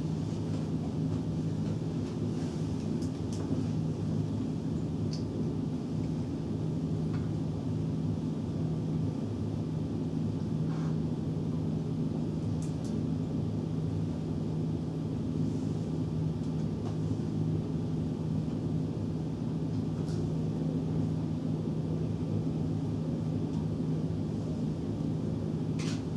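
Steady low hum of room background noise, with a few faint clicks and taps scattered through it.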